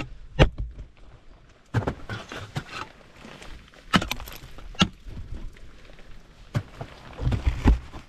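Ice axes and crampons striking into waterfall ice during climbing: irregular sharp strikes a second or two apart, with a heavier run of blows near the end.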